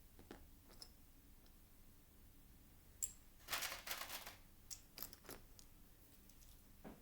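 Faint handling of small plastic Lego pieces: a sharp click about three seconds in, then a short burst of crinkly rattling and a few more light clicks as the pieces are picked up and pressed together.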